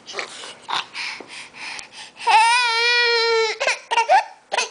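Crawling baby crying: short sobbing cries, then one long held cry a little over a second long starting about two seconds in, then short sobs again.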